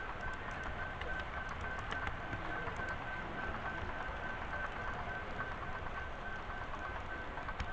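Model train rolling along its track, heard from a small camera riding on it: a steady rushing rumble with light scattered ticks and a faint whine that keeps cutting in and out.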